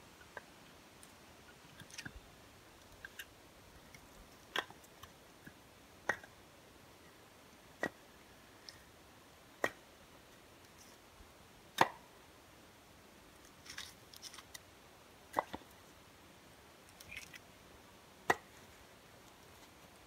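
Split firewood clacking as pieces are set down and stacked one at a time: a sharp wooden knock every one to two seconds, with fainter taps and rustles between.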